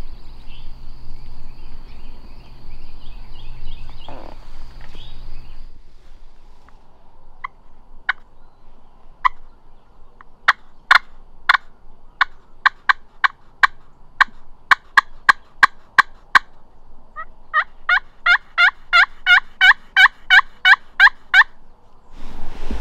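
Turkey calls: single sharp clucks that come faster and faster, then a quick run of yelps at about four a second lasting roughly four seconds.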